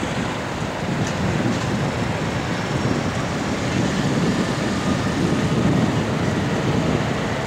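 Tokyo Monorail train running past on its elevated straddle-beam track, a steady rumble from its rubber-tyred cars.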